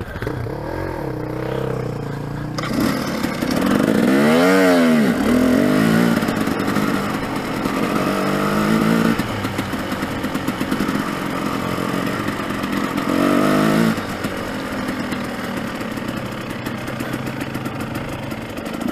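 Dirt bike engine running while riding a rocky wash, revving up and back down in sharp swells about four seconds in, again near nine seconds and near fourteen seconds, and running steadily in between.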